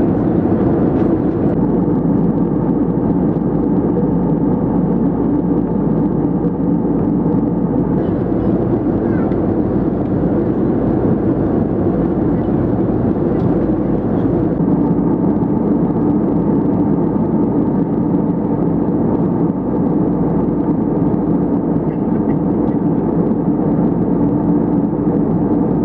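Airbus A320neo cabin noise in cruise flight: a steady, even roar of airflow and engines, low-pitched and unchanging.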